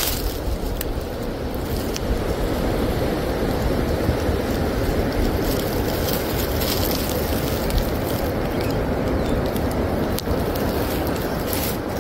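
Steady rumble of a vehicle moving along a rough dirt trail, with wind buffeting the microphone.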